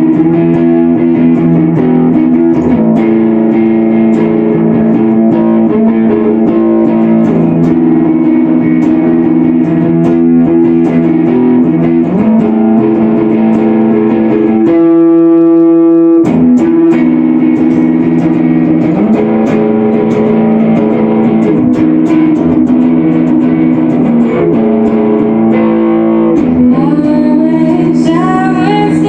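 Live indie rock band playing the guitar-led opening of a song, the guitar ringing out steady sustained chords. Near the end a singing voice comes in.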